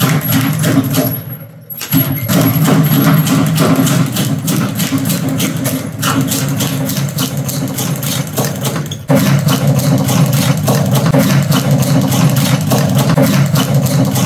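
Speed bag being punched rapidly, its leather bag drumming against the wooden rebound platform in a fast, even rattle. The rattle breaks off and resumes twice, about two seconds in and again about nine seconds in.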